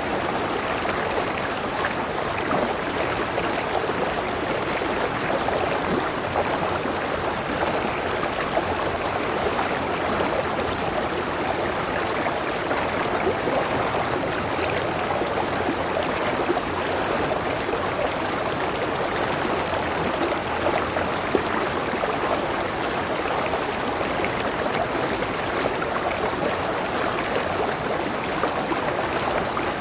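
Clear river water flowing over rocks and a small waterfall, a steady, unchanging rush with a babbling texture.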